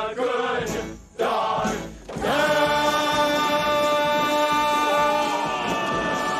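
Song finale from a musical number: a chorus of voices with instrumental backing sings a few short phrases with brief breaks between them. About two seconds in it settles into one long held final note and chord.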